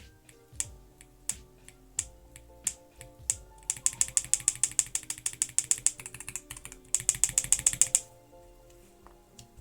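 Mechanical keyboard roller linear switches, with ball bearings in stem and base, being pressed: single keystrokes about every 0.7 s, then two fast rattling runs of rapid presses. Background music plays underneath.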